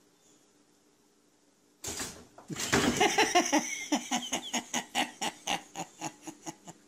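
A sudden noise about two seconds in, then a person laughing in quick pulses that fade away.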